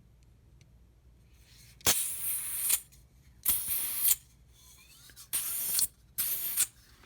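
Butane refill can pressed against a soldering torch's fill valve, gas hissing out in four short spurts. The owner takes the spraying to mean the torch's tank is already full.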